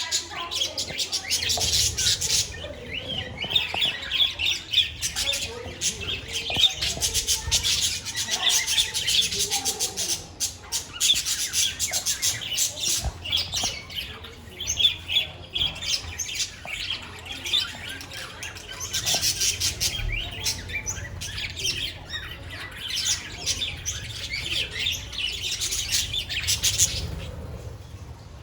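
A flock of budgerigars chirping and chattering together, a dense, continuous mix of warbles, short squawks and sharp clicks.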